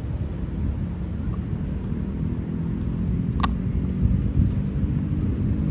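Low rumbling wind buffeting the microphone, slowly growing louder, with a single sharp click about three and a half seconds in.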